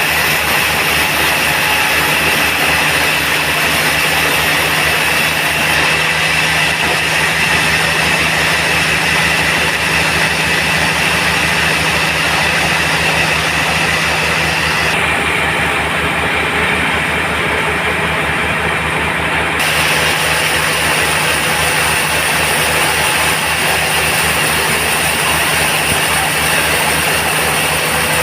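Band sawmill running steadily, a continuous mechanical drone with a hiss over it.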